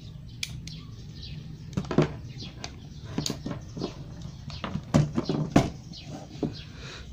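Irregular clicks and knocks of wires, tape and small parts being handled, the loudest about two, five and five and a half seconds in, over a low steady hum.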